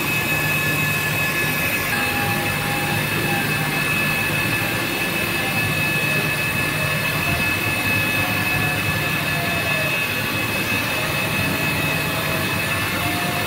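Casing cold-cutting machine running steadily on well casing: a constant hissing noise with a steady high whine.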